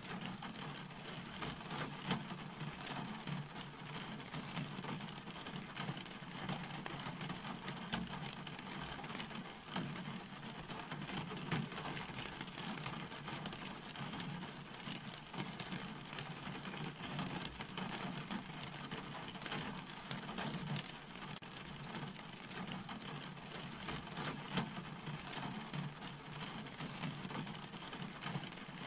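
Steady rain falling, with scattered drops ticking over an even hiss and a low steady rumble underneath.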